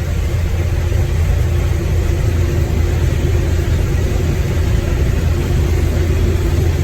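A large engine running steadily with a low rumble.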